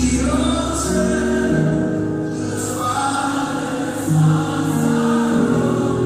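Gospel music with a choir singing long held notes.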